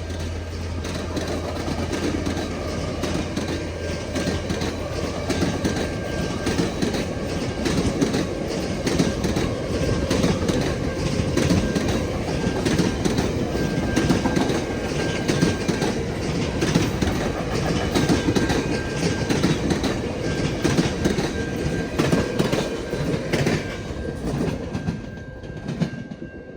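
VIA Rail passenger train passing, its wheels clicking steadily over the rail joints as the cars roll by. The low hum of the locomotive fades in the first few seconds, and the train dies away in the last couple of seconds.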